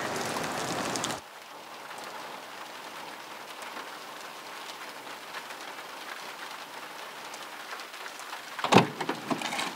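Steady rain, heavier for about the first second and then suddenly quieter. A single loud thump comes near the end, followed by a few light clicks.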